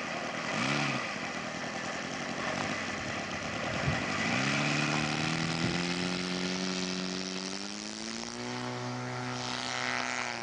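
Engine of a radio-control scale Fokker D8 opening up for its takeoff run: its note rises steadily about four seconds in, then holds at high power.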